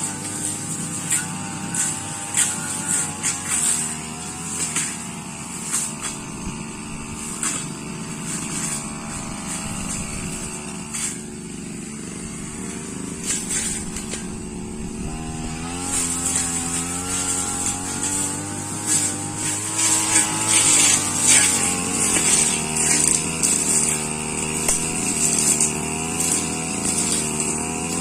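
Brush cutter engine running and being throttled up and down, its pitch rising and falling and running louder in the second half, with frequent sharp ticks as the blade strikes grass and sapling stems.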